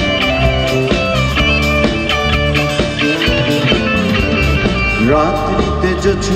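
Live rock band playing an instrumental interlude: an electric guitar plays a melodic lead over a drum kit and low bass notes, with a note sliding upward about five seconds in.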